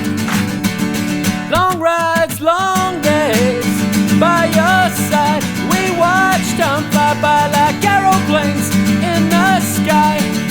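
Song backed by acoustic guitar chords, with a bending melody line over it from about two seconds in.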